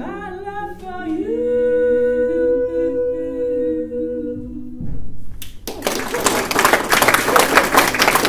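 Female vocal trio singing unaccompanied, closing on a long held chord that stops about five seconds in. About a second later the audience breaks into applause and keeps clapping.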